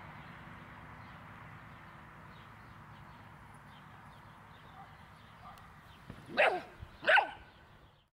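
Rough collie puppy barking twice in quick succession near the end, over a steady background hiss.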